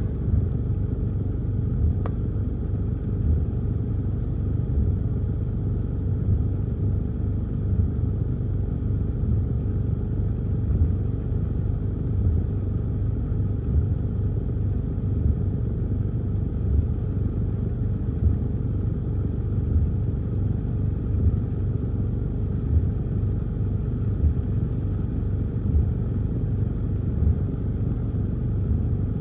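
Low steady rumble inside a car cabin, with the windshield wipers sweeping a rain-wet windshield and a soft thump about every second and a half at each stroke.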